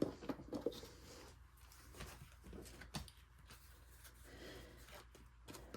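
Faint handling of paper and card stock, with a few light clicks and taps, over a low steady room hum.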